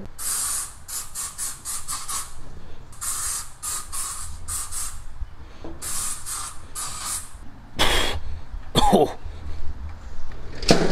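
Aerosol can of tick repellent sprayed in many short hissing bursts, in three quick clusters. Two louder, brief sounds follow near the end.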